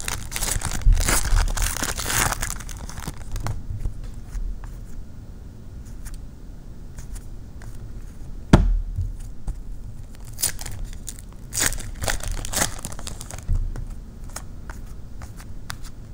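A trading card pack wrapper being torn open and crinkled. The rough crackling comes in bursts, heaviest in the first few seconds and again around ten to thirteen seconds in, with one sharp click about eight and a half seconds in.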